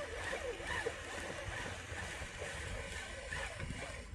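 Aerosol chain wax hissing steadily as it is sprayed onto a motorcycle drive chain.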